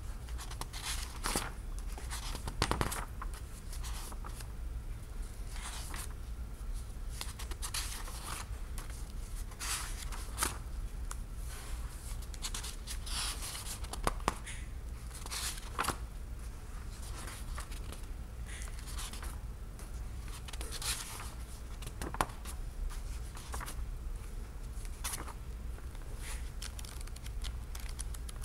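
Thick parchment-style pages of a large hardbound book being turned by hand, one after another. Each turn is a papery swish and rustle, with a few sharper flicks.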